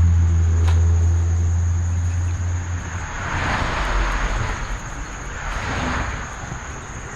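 A low engine drone that fades out about three seconds in, followed by two swells of hiss.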